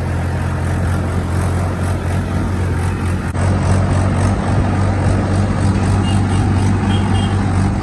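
Mahindra 585 tractor's diesel engine running steadily under way on the road, a constant low hum, heard from the driver's seat with wind noise on the microphone.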